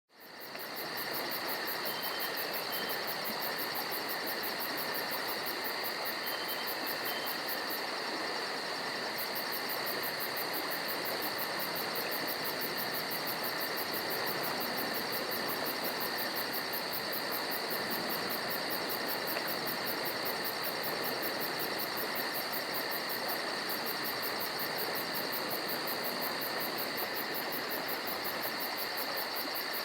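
Forest at night: a steady chorus of crickets and other insects trilling without a break over a soft hiss, with a few short, faint chirps now and then. It fades in over the first second.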